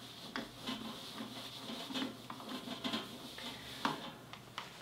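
Whiteboard being wiped clean with an eraser in repeated short rubbing strokes, with a few light clicks.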